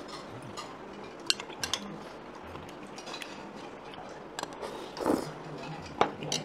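Eating utensils clinking against a pot and bowls during a meal, with several sharp, brief clinks scattered through a steady low room background.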